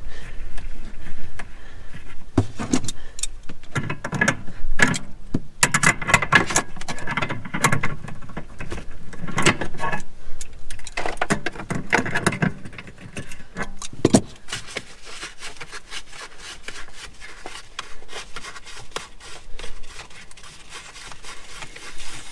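Pliers and fittings clinking, scraping and squeaking as hand-tight water-line connections on an RV water heater are worked loose, busiest in the first half and quieter with scattered clicks later.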